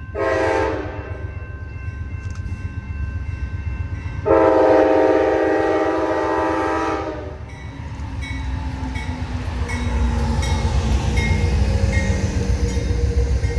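Amtrak diesel passenger locomotive's multi-chime air horn: a short blast, then a long one about four seconds in that lasts about three seconds. After the horn, the locomotive's rumble and a regular ticking grow louder as it passes close by.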